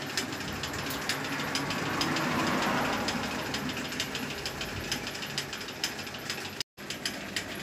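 Electric tyre vulcanizing machine curing a puncture repair in a tubeless tyre: rapid irregular ticking over a steady hiss, which swells about two to three seconds in. The sound cuts out for a moment near the end.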